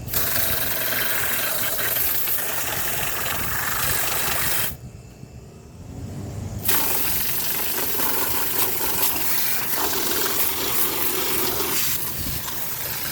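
Garden hose spraying water onto a window air conditioner, a steady hiss of water striking the metal. It cuts off about five seconds in, then starts again about two seconds later.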